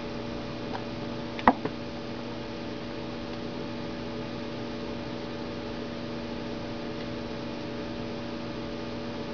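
Steady electrical hum over a faint hiss, with one sharp click about a second and a half in.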